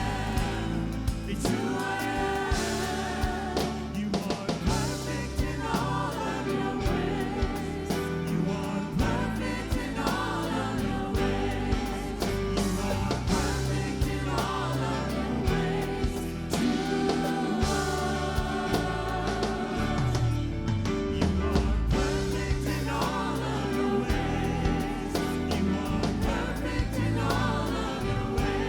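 Live contemporary worship music: singers with a full band, drums keeping a steady beat under wavering sung melody lines.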